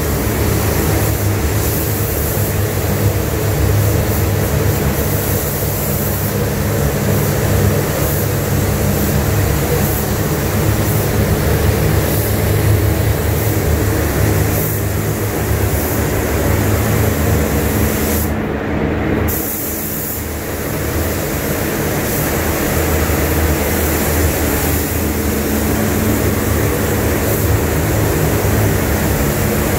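Steady running of spray-booth ventilation fans and airflow with a constant low hum, overlaid by the hiss of an air spray gun. The hiss drops out for about a second partway through.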